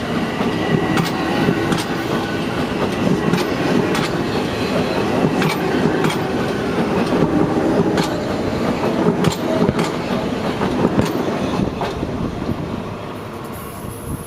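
Metro-North M7 electric multiple-unit commuter train departing and running past, a dense rumble with irregular wheel clicks over the rail joints. It fades near the end as the cars pull away.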